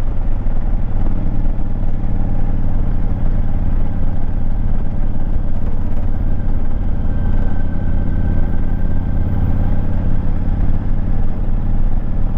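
Motorcycle engine running steadily under way, with a heavy low rumble of wind on the microphone.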